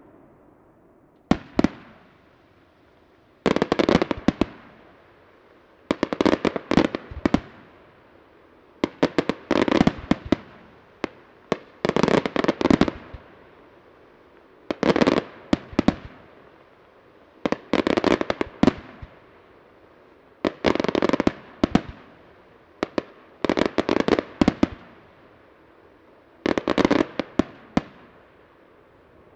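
Aerial firework shells bursting in the sky. About ten volleys of sharp bangs and cracks come every two to three seconds, each volley lasting a second or so.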